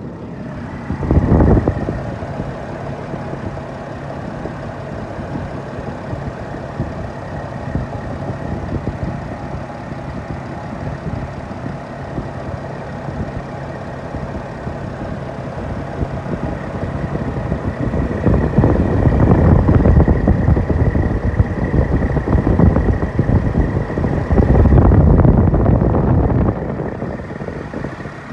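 Mercedes Sprinter van engine running with the newly fitted second alternator and its belt turning, a steady high whine over the engine note. There is a short louder surge about a second in, and the engine grows louder twice for a few seconds in the second half.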